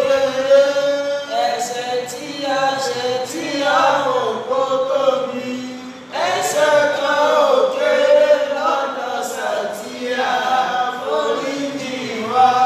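A man's voice chanting melodically in long held phrases, breaking off briefly about six seconds in before going on.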